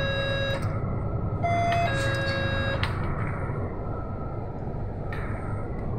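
Steady engine and road rumble inside a moving city bus. Over it sounds a two-note descending ding-dong chime: the end of one at the start, and a full one about a second and a half in.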